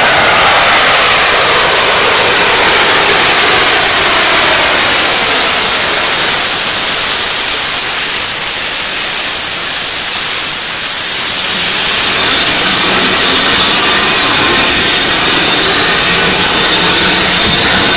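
BR Standard Class 7 'Britannia' Pacific steam locomotive 70013 Oliver Cromwell running slowly tender-first alongside the platform, with a loud steady hiss of steam. The hiss eases briefly about halfway, and a low steady hum joins it after.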